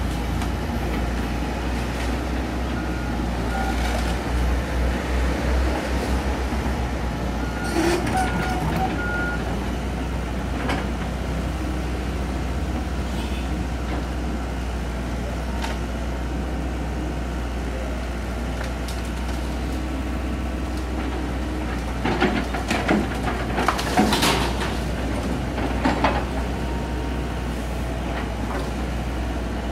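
Komatsu PC78US excavator's diesel engine running steadily under load with a low drone while its arm works in a tree. Bursts of sharp cracking and snapping come about eight seconds in and again in a cluster later on, as branches break.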